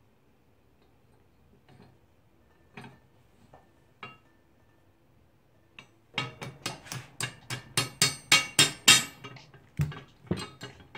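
Small metal hammer tapping a punch to drive a climbing pin back into a Hi-Lift jack's cast-iron pin housing. A few light metal clicks come first, then about six seconds in a fast run of ringing hammer taps, about five a second, growing louder, followed by a few slower taps near the end.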